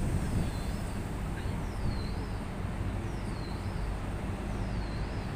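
Steady low rumble and hum of a VL10 electric locomotive standing at the head of its train. Over it, a high chirp that dips and rises repeats about every second and a half.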